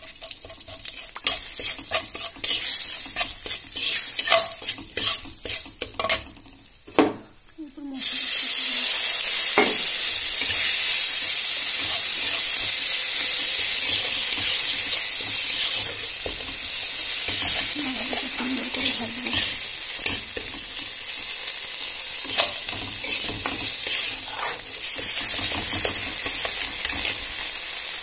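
A metal spatula scraping and tapping in a wok with a little oil. About eight seconds in, a wet ground spice paste of cumin, green chilli, ginger and onion hits the hot oil and sets off a loud sizzle. The sizzle carries on as the paste is stirred and fried, with the spatula clicking against the pan.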